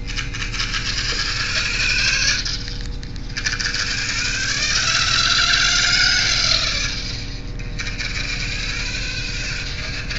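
Small RC-car-based robot's electric drive motor and gearbox whirring with a rattle as it drives forward and backs up. It runs in spurts, with a short break about three seconds in. The pitch shifts during a louder run in the middle that fades out near the end.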